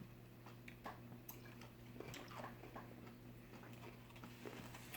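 Faint, scattered mouth clicks and chewing from eating a pickle wrapped in cotton candy, over a low steady hum.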